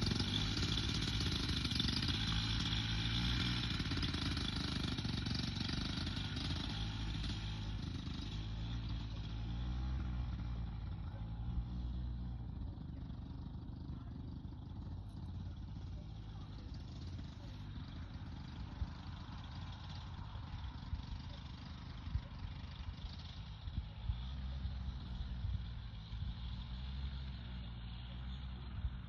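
Flexwing microlight trike's engine running steadily as it taxis on grass, growing fainter as it moves away.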